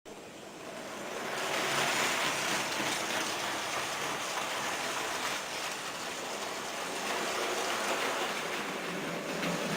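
Märklin H0 model train running on the layout's track: a steady whirring, rolling noise of motor and wheels on rails that swells over the first two seconds and then holds.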